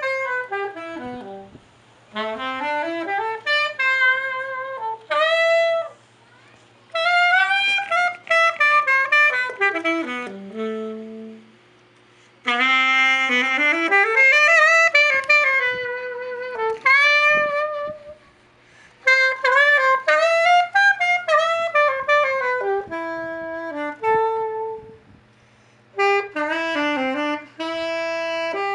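Solo alto saxophone playing a melody in phrases broken by short pauses, many notes sliding or bending in pitch, over a faint steady low hum.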